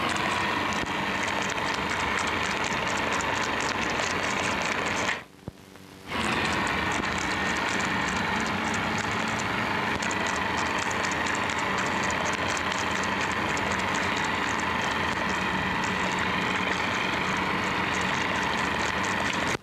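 Steady hiss and crackle of a 1930s optical film soundtrack with no speech, with a faint steady whine under it. The noise drops away for about a second around five seconds in, then returns.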